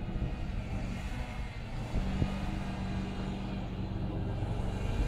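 Homemade wheel loader's engine running steadily as the machine drives through the snow, its note growing stronger about two seconds in.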